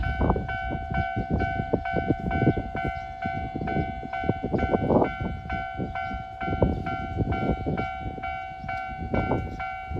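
Japanese railway level-crossing warning bell ringing, a repeating electronic ding about twice a second, over an irregular low rumble.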